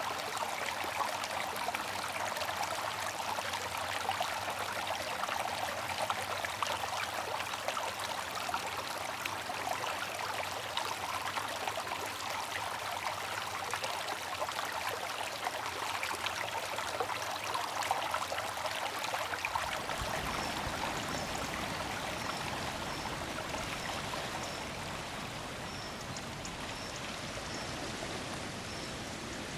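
Shallow stream water running and trickling over sand and stones, a steady rushing; a deeper rumble joins about two-thirds of the way through.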